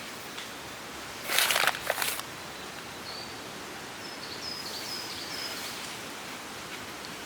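Outdoor countryside ambience with a steady background hiss, a brief loud rustle about a second and a half in, and a bird chirping a string of short high notes a few seconds later.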